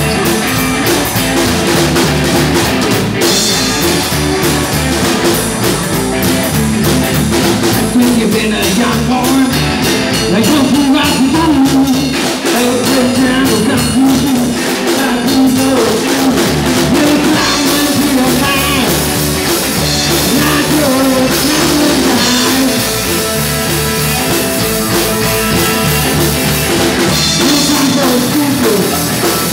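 A band playing rock and roll live: upright double bass, drum kit and electric guitar, with a man singing into a microphone.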